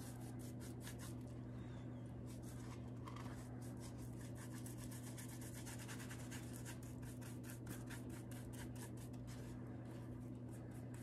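Paintbrush strokes spreading Mod Podge glue over a styrofoam disc: quick, faint, scratchy rubbing strokes, over a steady low hum.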